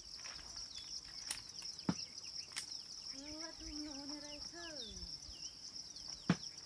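Steady high-pitched insect drone with many short falling bird chirps over it. A distant drawn-out call, voice-like and falling at its end, comes about three seconds in, and a couple of sharp clicks stand out.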